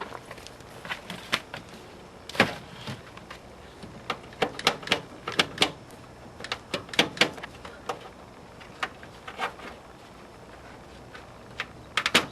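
Irregular sharp clicks and knocks, with louder clunks about two and a half seconds in, a cluster around five seconds, another around seven seconds and a quick run near the end. No horn is sounding.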